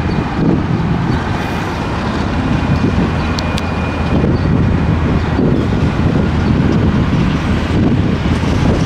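Two KiwiRail DXC-class diesel-electric locomotives hauling a loaded coal train approach, their engines running steadily, with wind buffeting the microphone.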